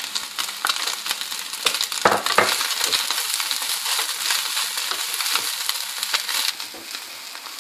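Chopped vegetables and chicken sizzling in a frying pan as peas are tipped in and stir-fried with a wooden spatula, the spatula making scraping clicks against the pan. The sizzle drops away near the end.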